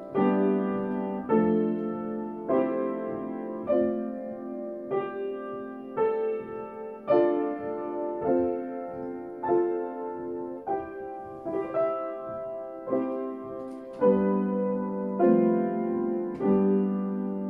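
Slow solo piano music: a chord struck about every second and a quarter, each left to ring and fade before the next.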